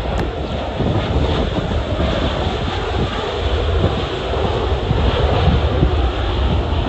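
Jet airliner engine noise, a loud steady rush that swells slightly, mixed with gusty wind buffeting the microphone.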